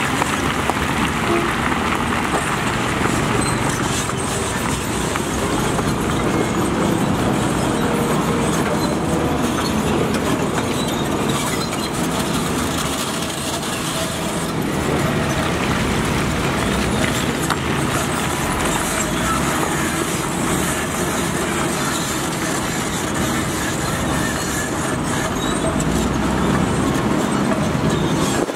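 Heavy machinery running: a steady, loud mechanical rumble and rattle that does not let up.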